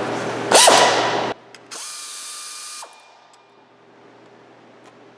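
Power drill/driver running in two short bursts. The first spins up with a rising whine and stops about a second in. The second is a steady whine lasting about a second.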